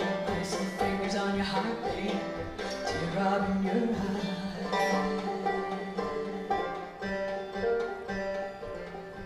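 Banjo picked in a wordless instrumental passage of an acoustic song: a quick run of plucked notes over longer held low notes.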